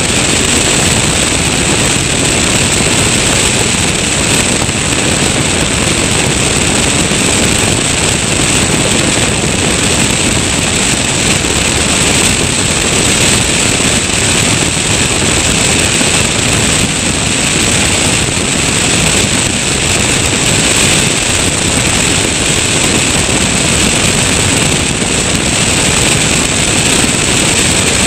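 Tecnam P2002 Sierra ultralight in its climb after take-off: the Rotax 912 engine and propeller running steadily under power, mixed with loud, even airflow rush over the wing-mounted microphone.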